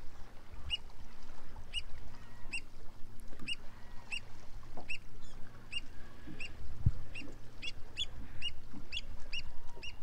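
Black oystercatcher giving a long series of short, sharp piping calls, about two to three a second and coming faster toward the end, over a low rumble. There is one dull thump about seven seconds in.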